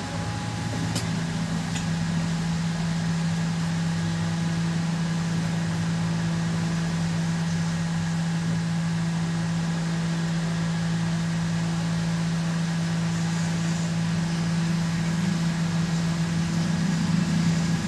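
Handheld air blower running steadily, a constant motor hum with rushing air, as it blows over a water-damaged phone's circuit board to drive out the remaining moisture.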